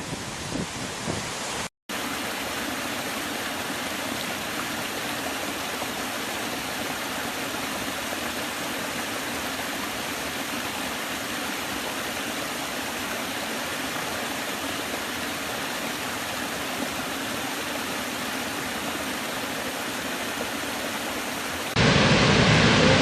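Waterfall rushing steadily, an even hiss of falling water. There is a brief dropout just before two seconds in, and near the end the sound changes suddenly to a louder, deeper rush.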